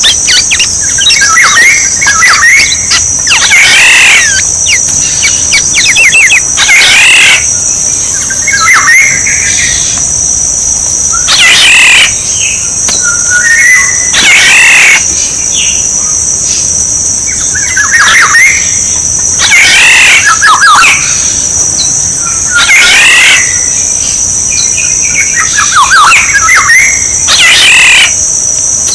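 Oriole calls, loud whistled and rasping notes repeated every two to three seconds, as played for luring birds. A steady high hiss runs underneath.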